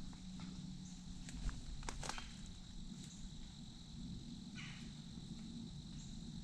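Quiet woodland ambience: a steady high-pitched drone, with a few faint clicks and a brief rustle about four and a half seconds in.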